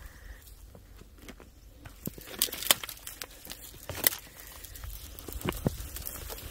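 Footsteps on dry ground and leaf litter, with irregular crackling and a few sharp snaps, the loudest about two and a half and four seconds in.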